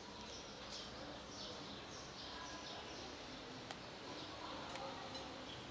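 Small bird chirping over and over, short high falling chirps about twice a second, with a couple of faint clicks in the second half.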